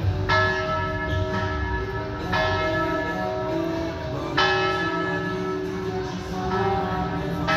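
Church tower bells ringing, a strong new stroke about every two seconds over the long, sustained ringing tones.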